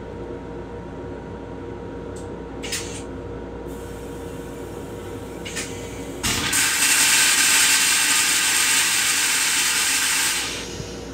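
Railcar toilet flushing: over a steady background hum, a few short hisses, then about six seconds in a loud rushing hiss that lasts about four seconds and stops.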